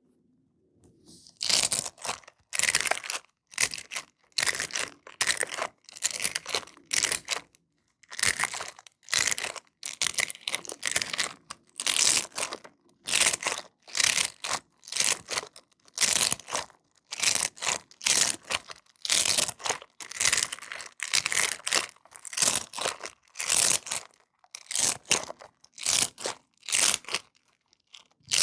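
A sensory squishy toy being squeezed over and over. Each squeeze gives a short scratchy rustle, about one or two a second, beginning a second or so in.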